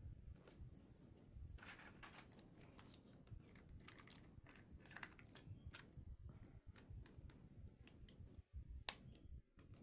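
Irregular small clicks and taps of hands and small tools working on an opened smartphone, with a sharper click about two seconds in and another near the end.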